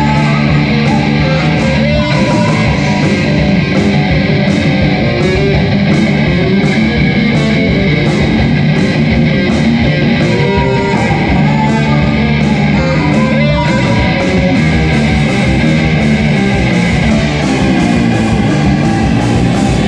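Live rock band playing loud: electric guitars and a drum kit, with a woman singing into the microphone. The drum and cymbal strokes come in a steady beat.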